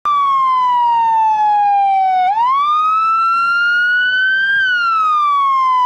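Police car siren in a slow wail: one loud, clean tone that falls for about two seconds, rises again, then falls once more.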